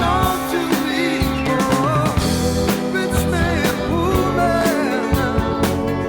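A song with a singing voice over a band with a drum kit, the drums striking at a steady beat.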